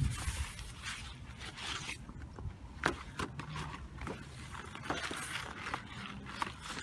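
Large poster board rustling and scraping as it is handled and folded, with scattered crinkles and clicks.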